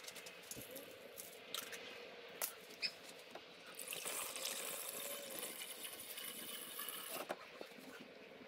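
Coolant being poured through a funnel into a Toyota Prius's coolant reservoir while the cooling system is refilled after a water pump replacement. A faint trickle with a few small clicks swells into a steadier pour from about four seconds in to about seven seconds.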